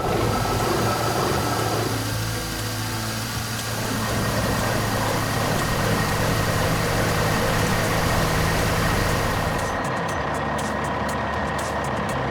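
Engine of a heavy construction vehicle running steadily, its sound changing near the end.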